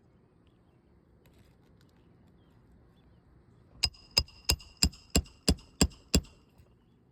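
A roofing hammer striking a steel roof snake eight times in quick succession, about three blows a second with a metallic ring, driving a nail back in under a lifted shingle.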